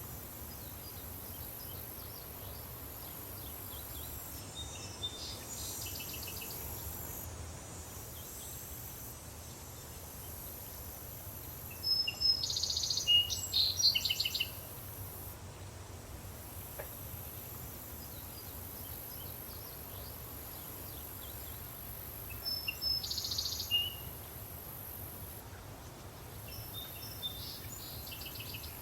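Daytime countryside ambience: a steady high insect drone over a low rumble, with birds chirping in short bursts, loudest about twelve seconds in and again about twenty-three seconds in.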